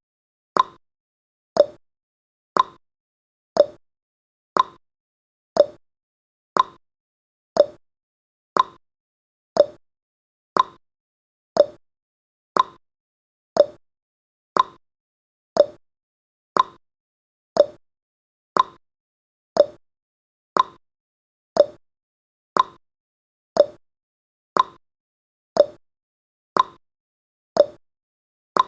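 Countdown timer's ticking sound effect: short, sharp clock-like ticks, one each second, steady and evenly spaced.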